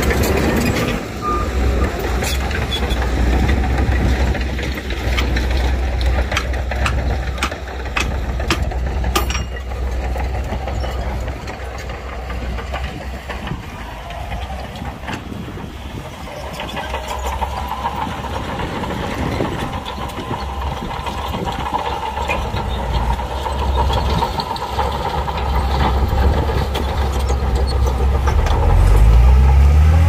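Heavy diesel earthmoving machinery running under load, with a run of sharp metallic clanks in the first third. From about halfway a steady higher whine joins the engine, and near the end an engine revs up.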